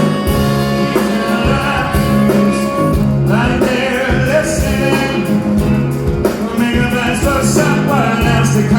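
Live pop band playing the opening bars of a song: drum beat, bass and keyboard chords, with a gliding lead melody coming in about three seconds in.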